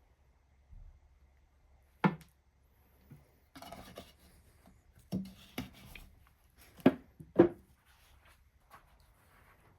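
Several sharp knocks and clatters of hard objects being handled and set down, with a short scraping rustle between them; the loudest knocks come about two seconds in and then twice in quick succession near the end.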